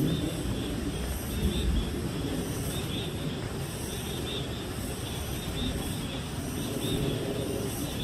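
Outdoor forest ambience: a steady low rumbling noise with faint, short high chirps repeating now and then.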